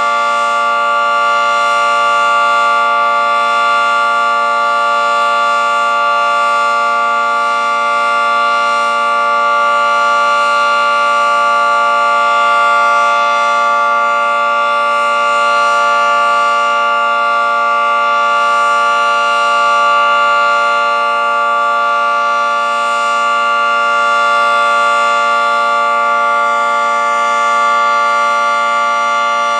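Federal Signal 2T22 dual-tone rotating outdoor warning siren sounding a steady alert chord, its pitch held level, with a gentle rise and fall in loudness.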